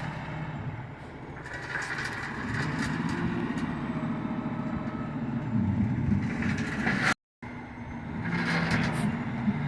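Topsoil slinger truck running steadily while throwing out a load of topsoil, its engine hum carrying throughout. The sound cuts out briefly about seven seconds in.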